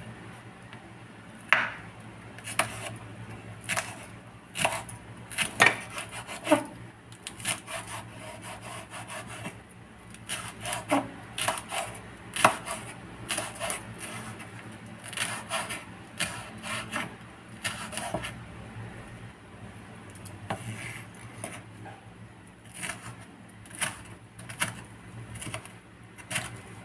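Kitchen knife slicing and dicing a red bell pepper on a wooden cutting board: irregular knocks of the blade on the board in short runs with pauses between them.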